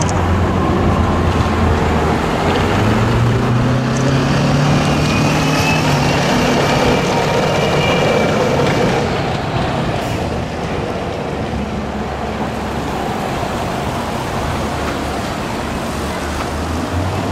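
Heavy military vehicles driving past one after another, their diesel engines running loudly; one engine's note rises about three seconds in, a faint high squeal is heard around the middle, and the sound eases a little in the second half.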